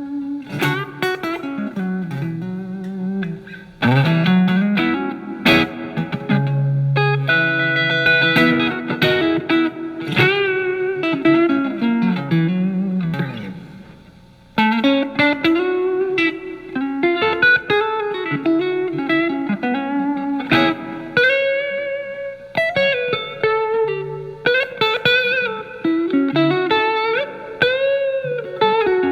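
Telecaster electric guitar through a Marshall MG15FX amp's crunch channel, cleaned up to a lighter break-up, playing bluesy single-note lead lines with string bends. There is a short pause about halfway through.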